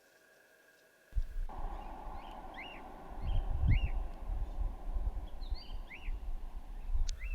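A flock of wild cockatiels and galahs calling: about a dozen short whistled chirps, each rising then falling, over a steady low rumble. The sound starts suddenly about a second in, after near silence.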